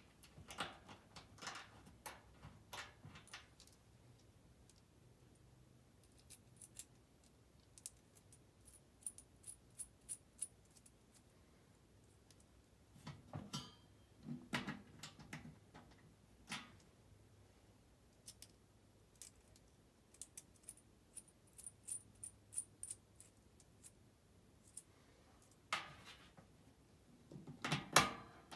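Faint metallic clinks, taps and rattles as hardware is handled while an ECM blower motor and its mounting arms are fitted onto a sheet-metal blower housing. They come in short clusters near the start, around the middle and near the end.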